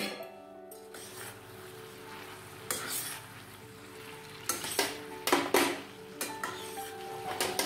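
A metal spoon stirring chopped onion flower stems and potato pieces in a steel pan, scraping and clinking against the pan, over the sizzle of the vegetables cooking. The strokes come in bursts, a short one about three seconds in and a louder run between four and a half and six seconds.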